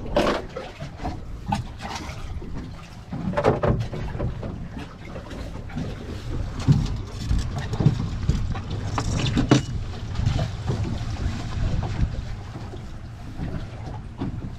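Wind rumbling on the microphone and water noise around a small fishing boat, with irregular knocks and clatters on the boat now and then.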